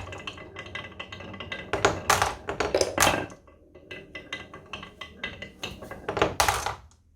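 Irregular clattering and tapping of small hard objects, with louder bursts of knocks about two to three seconds in and again near the end, stopping abruptly just before the end.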